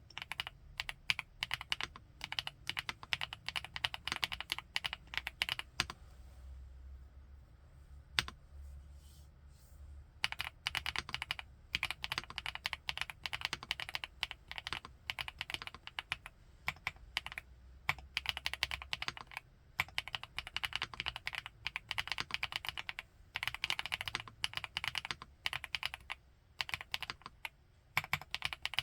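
Typing on an FL-ESPORTS Geo75 mechanical keyboard with Kailh x Funkeys BCP switches: quick runs of keystrokes broken by pauses of a few seconds, the longest about a quarter of the way in with a single stray key press, and shorter ones past the middle and near the end.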